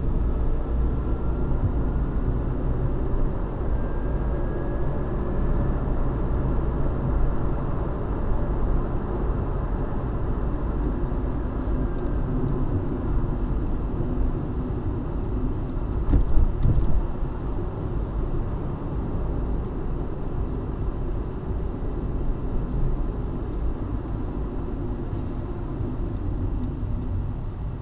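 Inside a moving car, picked up by a windshield-mounted dashcam's microphone: steady low engine and tyre rumble while driving in traffic. A faint rising whine over the first few seconds, and a short bump about sixteen seconds in.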